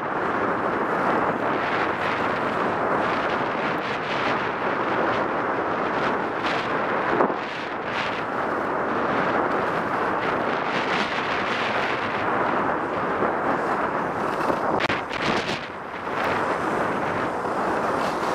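Wind rushing over the microphone of a skier's body-mounted camera, mixed with skis scraping and hissing over firm groomed snow on a downhill run. The noise is steady, with a brief dip in the last few seconds.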